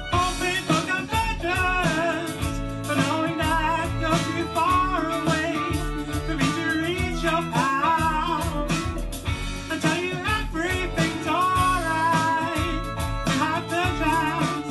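Band music: singing over guitar, bass guitar and drums.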